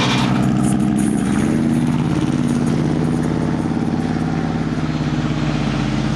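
Motor vehicle engine running at a steady idle, its pitch rising slightly for a moment about a second in, then holding steady.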